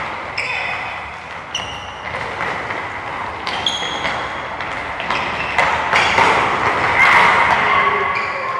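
Soccer ball thudding off feet and a hard floor again and again, with short high shoe squeaks and players' voices echoing in a hall.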